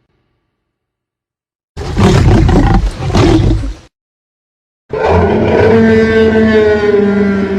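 Tyrannosaurus rex roar sound effect: a loud roar of about two seconds, then a pause and a second, longer roar with a steady pitched tone, still going at the end.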